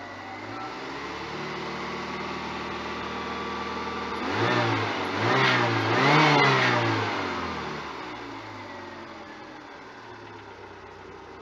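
1995 Fiat Uno's engine running just after a radiator replacement and coolant refill. It is blipped three times in quick succession about halfway through, each rev rising and falling, then settles back to a steady idle while it warms toward thermostat opening.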